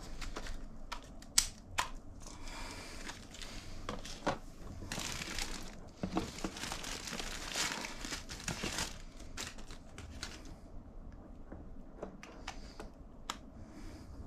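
Crinkling and rustling handling noise with scattered light clicks and knocks, busiest in the first two-thirds and quieter near the end.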